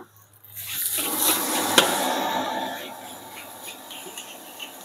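Fried rice sizzling loudly in a hot steel wok as a spatula stirs freshly added sweet soy sauce (kecap manis) through it. The hiss builds about half a second in and dies down after about three seconds, with a few spatula knocks against the wok.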